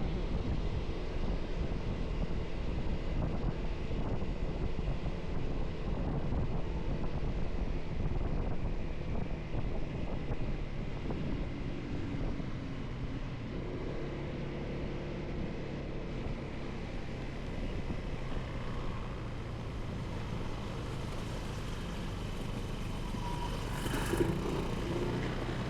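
Motorcycle riding in traffic: the engine runs steadily under wind and road noise on the rider's microphone. One brief sharp sound stands out near the end.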